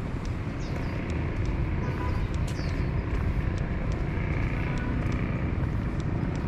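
City street ambience: a steady low rumble of road traffic, with scattered short high ticks and a few brief chirps.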